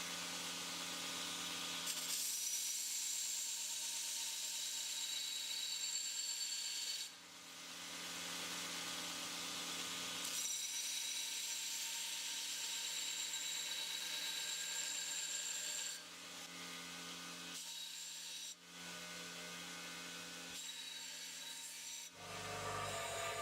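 Electric grinder working the axe head's metal. A steady hiss with a high whine rides over a low motor hum, in passes that break off about seven seconds in and again near sixteen seconds.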